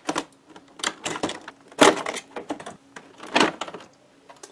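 Rigid clear plastic packaging tray cracking and clicking as it is handled and an item is pulled out of it: about half a dozen sharp, irregular cracks.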